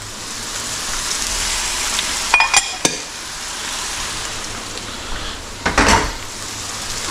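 Oil sizzling steadily in frying pans of fish fillets and vegetable stir-fry. A few sharp clinks come about two and a half seconds in, and a louder knock near six seconds.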